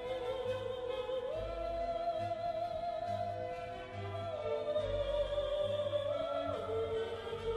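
Slow classical background music: a solo operatic voice holds long notes that step up and down between pitches, over low orchestral accompaniment.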